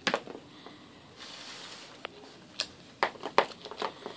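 Hard plastic toy pieces of a Shopkins So Cool Fridge playset clicking and knocking as they are handled. There is a sharp click at the start, a soft rustle in the middle, then a quick run of clicks near the end.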